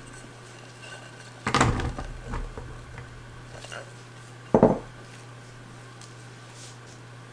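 Cubes of boiled sweet potato tipped from a glass bowl into a square metal baking pan, clattering in about a second and a half in and settling over the next second. A single sharp knock follows about three seconds later.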